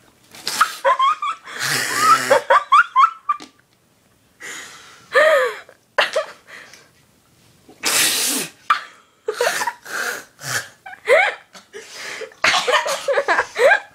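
A girl coughing, spluttering and spitting after a mouthful of salt, in several sharp bursts with the strongest about eight seconds in. Laughter breaks in between them.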